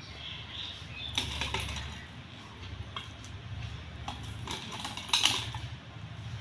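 Whole raw prawns being handled on a steel plate: scattered light clicks and taps of shells and plate, the loudest about five seconds in, over a low steady hum.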